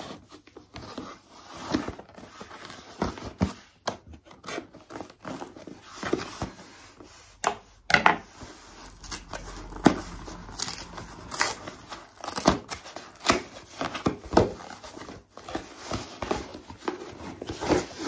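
A cardboard mailer being torn open and handled by hand: irregular tearing, crinkling and scraping of cardboard, with sharp clicks and rustles throughout. Near the end a boxed phone slides out of the mailer.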